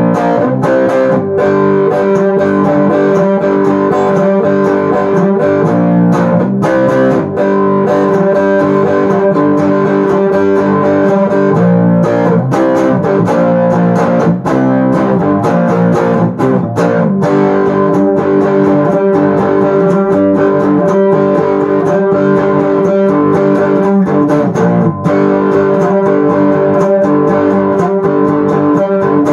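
Homemade cigar box guitar with a metal resonator cone, plugged in and amplified, strummed and picked in a repeating funky riff with ringing sustained notes.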